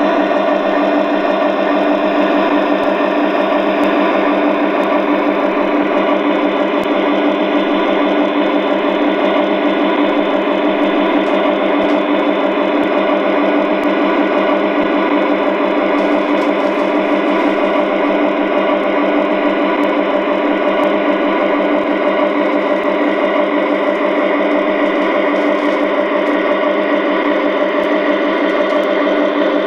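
DCC sound decoder in an LGB G-scale SD40 model locomotive playing a diesel engine running steadily, through the model's small onboard speaker, so it has a fast even throb and no deep bass.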